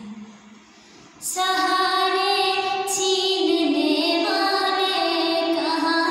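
A young girl singing solo in long held notes that step from pitch to pitch; after a short pause she comes back in with a new phrase about a second in.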